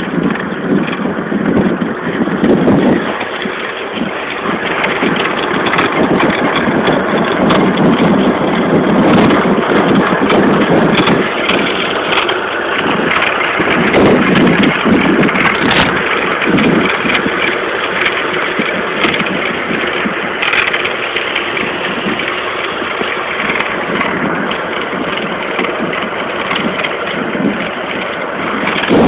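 Steady rushing noise of an electric bicycle being ridden at speed, mostly wind on the microphone together with the bike's running noise, a little louder through the middle.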